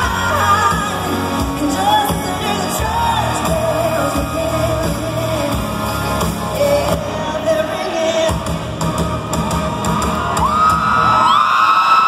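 Live band playing a loud country-rock song with a woman singing lead, heard from the crowd in an arena. Near the end the band drops away and the crowd cheers and screams.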